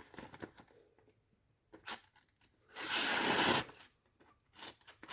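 Freshly sharpened knife edge being drawn through paper to test its sharpness, with a few short scrapes and one long, smooth slicing stroke about three seconds in.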